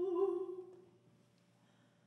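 Soprano singing one held note that stops about three quarters of a second in, followed by a quiet pause with only faint room tone.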